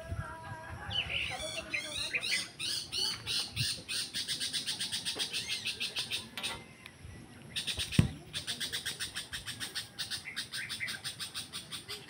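Birds calling in fast chattering runs of sharp, high notes, about seven a second, in two long bouts with a short break past the middle. A single loud knock comes about eight seconds in.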